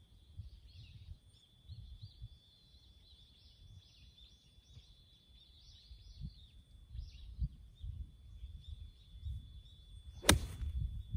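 A 54-degree wedge striking a golf ball on a full swing: one sharp click about ten seconds in.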